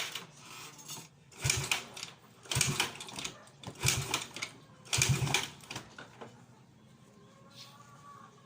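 Yamaha Mio Sporty scooter engine cranked in four short bursts, about a second apart, without catching: a hard start caused by sinking, leaking valves.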